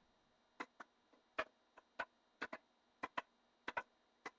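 Devil stick being tapped back and forth between two hand sticks: about a dozen light clicks, some in quick pairs, roughly one stroke every half second.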